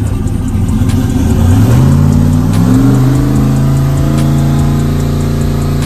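Turbocharged 5.3-litre V8 engine running hard, its pitch climbing for a couple of seconds and then holding steady.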